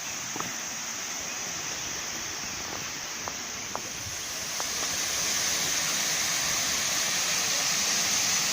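Steady rush of falling water from a waterfall, a constant hiss that grows louder about five seconds in, with a few faint clicks.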